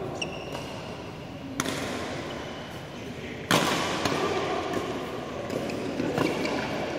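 Badminton rally: sharp racket strikes on the shuttlecock, one about one and a half seconds in and a louder one about three and a half seconds in that rings on in the hall. Lighter hits follow near the end.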